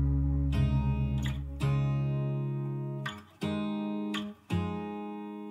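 Background music: acoustic guitar chords struck about once a second, each ringing out and fading before the next, with no singing.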